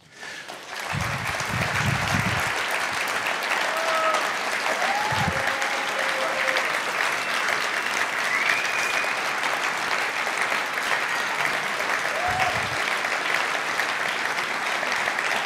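Audience applauding: a large crowd clapping steadily, starting just after the speaker stops and building up within about a second, with a few brief voices calling out over it.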